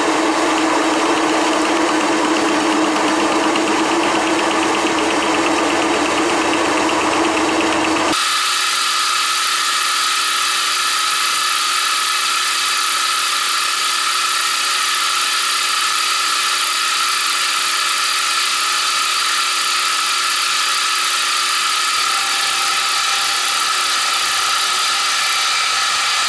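Milling machine cutting the teeth of a 20-tooth gear pinion at 1 mm depth of cut, a steady mechanical whine and cutting noise. About eight seconds in the sound changes abruptly to a brighter, higher whine.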